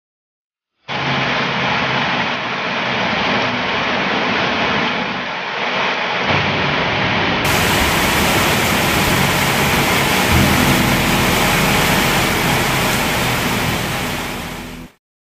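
Heavy rain pouring down, a steady dense hiss that starts about a second in and cuts off just before the end.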